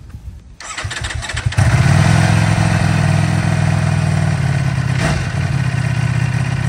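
Ducati Panigale V4 S's V4 engine cranking on the starter for about a second, then catching and settling into a steady idle.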